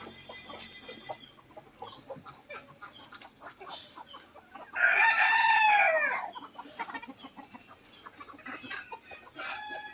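Rooster of a native (nadan) chicken flock crowing once, one long call of about a second and a half about five seconds in, over quiet clucking and scattered pecking clicks of the hens feeding.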